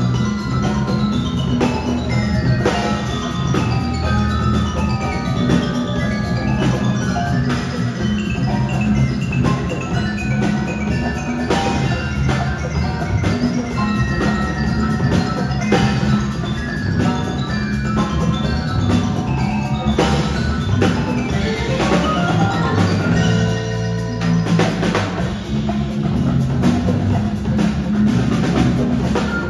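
Percussion ensemble playing: marimbas and other mallet keyboard instruments carry quick melodic lines over a drum kit and congas. About three-quarters of the way through there is a fast upward run of mallet notes.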